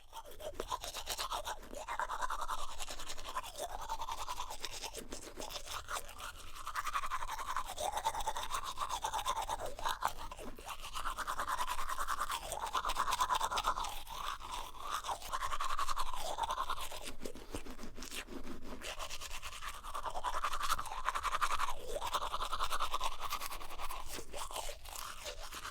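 Toothbrush scrubbing back and forth over teeth: a continuous bristly scraping in quick strokes, swelling and easing, its tone shifting as the brush moves around the mouth.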